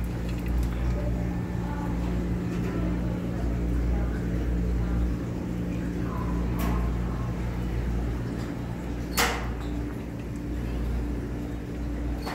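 Steady low hum with faint indistinct voices, broken by a short click and then a sharp clack about nine seconds in.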